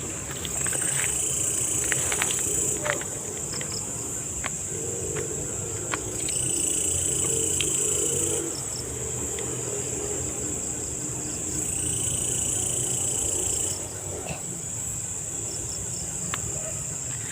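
Night insects calling: a steady high shrill trill, with three louder surges of shrilling about two seconds each that swell in and cut off. Faint clicks and rustles of handling run underneath.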